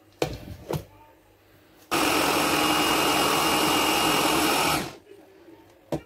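Electric mini chopper blending plantain: a couple of knocks as the motor top is set on, then the motor runs steadily for about three seconds and winds down. Another knock near the end as the lid is lifted off.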